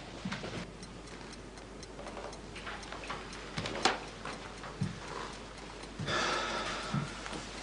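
A clock ticking steadily in a quiet room, with a few soft knocks as a door is opened and someone comes in.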